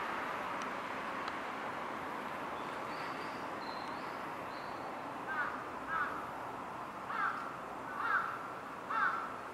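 A bird calling, five short harsh calls about a second apart in the second half, over a steady background hiss. Faint high whistled notes come a little before them.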